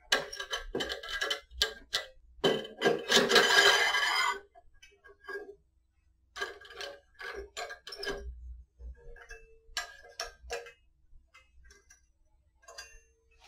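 Metal clicks and clinks of a hex key and clamp screw being worked in a photo-eye mounting bracket on a steel rod, loosening and adjusting it by hand. A dense run of clicks with a slight metallic ring, a pause, then scattered clicks.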